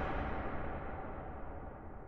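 Reverberating tail of a shotgun blast, fading away steadily with a low rumble underneath.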